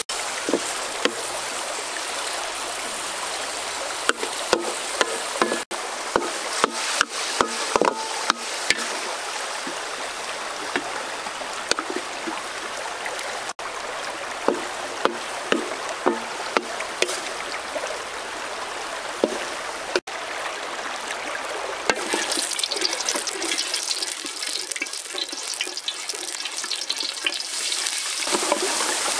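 Steady rush of stream water, with a wooden spatula clicking and scraping against an aluminium wok as shrimp are stirred. The sharp taps come in runs, one about four seconds in and another around the middle.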